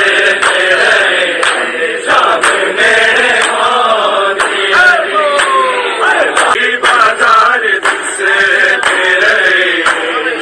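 Male voices chanting a noha, a Shia lament recited in Punjabi, in a slow mournful melody. Sharp beats about once a second keep time under the voices.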